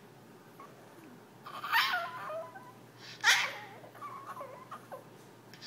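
Yorkshire terrier begging to play: two short, high yips about a second and a half apart, then a thin, high whine.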